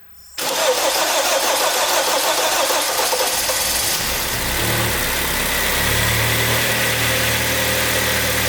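Rebuilt Kia G4KD 2.0-litre four-cylinder petrol engine starting about half a second in on its first start after a complete overhaul, then running, settling into a steadier idle from about four seconds in.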